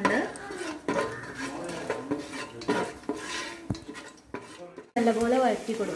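A spatula scrapes and clicks against a non-stick pan as whole spices (cinnamon sticks, cloves, cardamom pods) are stirred in hot oil to roast. The sound cuts off abruptly about five seconds in, and a voice starts speaking.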